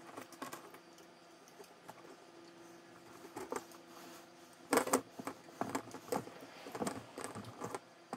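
Crimping pliers being worked on a wire's crimp terminal: quiet handling at first, then about five seconds in a cluster of clicks and knocks as the tool closes, followed by scattered lighter clicks.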